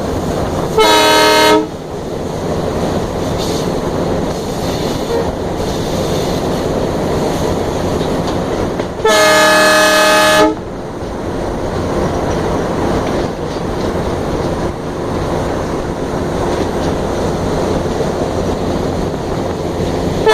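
A diesel locomotive's horn sounds twice from on board: a short blast about a second in and a longer one about nine seconds in. Between the blasts the locomotive runs with a steady, loud noise of engine and wheels on the rails.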